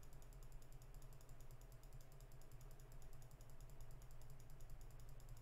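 Faint, fast, evenly spaced clicking of a computer mouse button pressed over and over, over a low steady hum.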